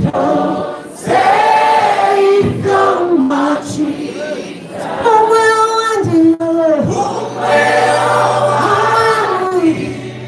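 Church congregation singing a worship song together in long held phrases. A steady low tone sounds underneath from about seven seconds in.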